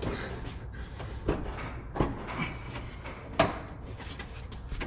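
A few scattered knocks and clicks, the loudest about three and a half seconds in, over a low steady hum.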